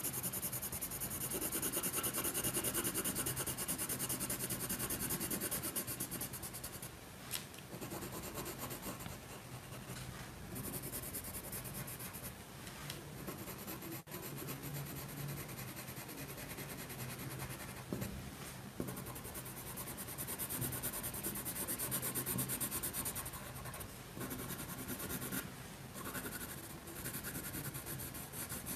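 Watercolour pencil colouring in on paper: the lead scratching back and forth in steady shading strokes, coming in spells with brief lulls and a few small clicks.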